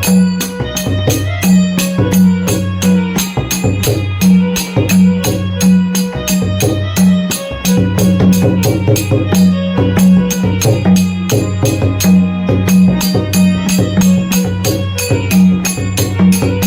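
Traditional Konkan Shimga festival drumming by two players: deep, ringing drum strokes under sharp metallic jingling strokes that keep a fast, steady beat of about three to four a second.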